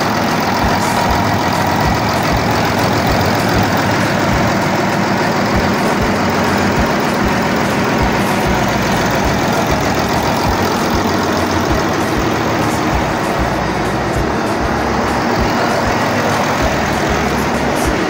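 Kirovets K-701 tractor's V12 diesel engine, 300 hp, running steadily and loudly while being run in after assembly.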